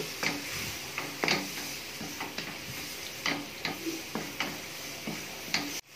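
Wooden spatula stirring and pressing thick mashed-banana halwa in ghee in a nonstick pan: irregular soft scrapes and taps of the spatula on the pan as the mash thickens.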